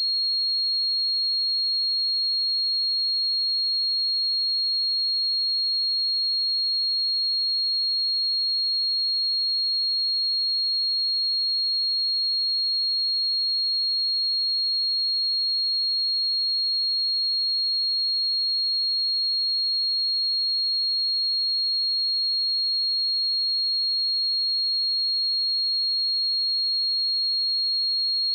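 A steady, high-pitched pure sine-wave test tone at 4278 Hz, held unchanging at one pitch and level.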